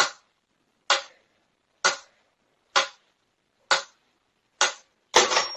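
Sharp knocks repeating evenly about once a second, six in all, each dying away quickly. A busier clatter of knocks follows near the end, with a faint high steady tone under it.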